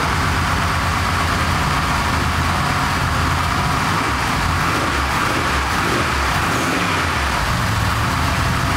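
Twin-turbocharged Ford modular V8 in a Ford Granada running steadily at a loud idle on its first start-up after the build.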